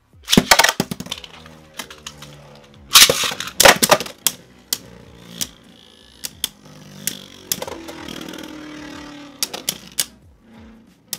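Two Beyblade Burst tops launched into a plastic stadium: a clatter of plastic about half a second in, the loudest burst at the launch about three seconds in, then the tops spinning and clashing with repeated sharp clicks over a steady whir.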